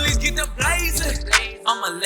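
Hip hop track with a rapped vocal over a heavy bass line and drum hits; the bass drops out briefly near the end.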